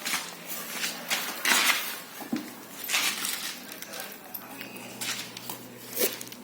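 Irregular clattering and rustling of small objects being handled, in several short bursts with the loudest about a second and a half in, three seconds in and near the end.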